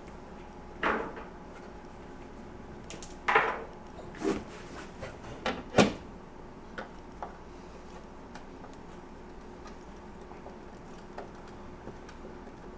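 Knocks and scrapes of a broken drawer slide rail being worked loose and pulled out. The louder knocks fall about a second in and between three and six seconds in, followed by a few faint ticks.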